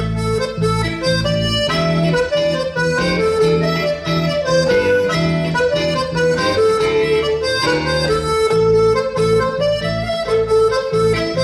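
Accordion playing a Breton dance tune, a melody over a steady pulse of bass chords.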